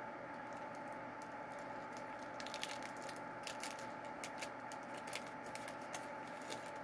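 Candy bar wrapper being handled and torn open: faint crinkling with irregular small clicks that start about two seconds in, over a steady low hum.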